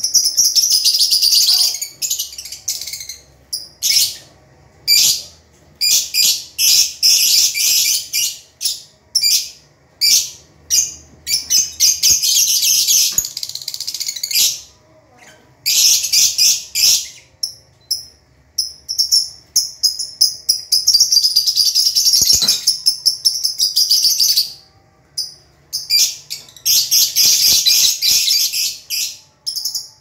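Flock of lovebirds, mostly Fischer's lovebirds, chattering with rapid, shrill, high-pitched chirps. The chirping comes in bursts of one to three seconds with short pauses between them.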